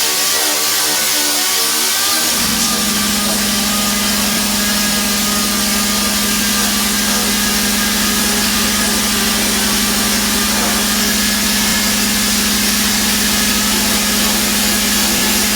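Orbital sander running continuously as it dry-sands the clear coat on a painted steel fender. About two seconds in, a strong steady low hum sets in and holds for the rest of the run.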